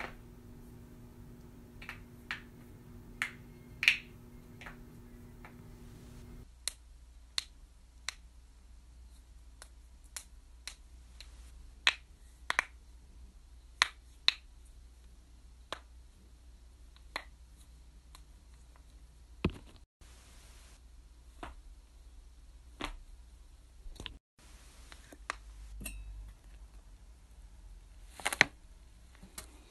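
Sharp single pops of joints cracking, mostly knuckles being bent and cracked one at a time, each pop a second or more after the last. A few pops are much louder than the rest; a faint steady hum lies under the first few seconds.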